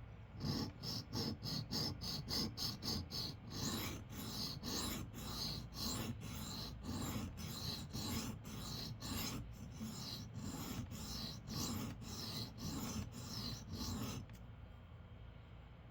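Steel pocket-knife blade scraping back and forth on a 325-grit sharpening stone in a steady rhythm, quick strokes about four a second at first, then slower, longer strokes about two a second. The strokes stop about a second before the end. It is the edge of one side being ground down to an apex.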